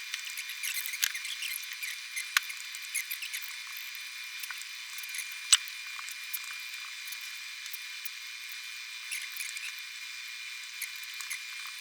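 Small clicks and ticks of hand tools working on a smartphone over a steady thin hiss, with two sharper ticks about two and five seconds in. The audio is thin and tinny, with no low end at all.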